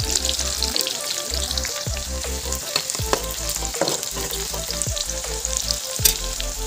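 Chopped onions, dried red chillies and whole spices frying in hot oil in a wok, sizzling steadily. A spatula stirs the pan now and then, with a sharp click about six seconds in.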